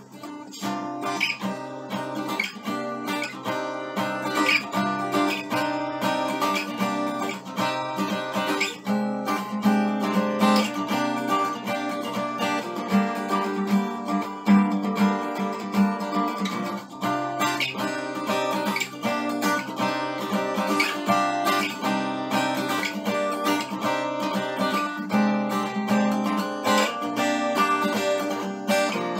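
Steel-string acoustic guitar with a capo, strummed in a steady rhythm of quick strokes.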